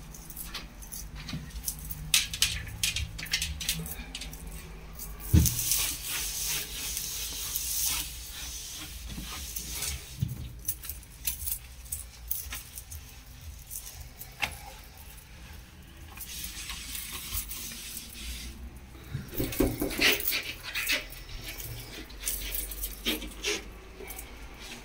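Cleaning sounds: a cloth rubbing and wiping over bathroom fixtures, with scattered clicks, clinks and knocks of handling, and a sharp knock about five seconds in.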